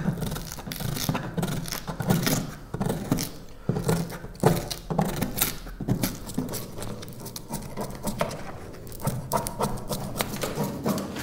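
A hand scraper worked under an old foam traction mat on a jet ski's deck, scraping and tearing the mat away from the glue in short, irregular strokes.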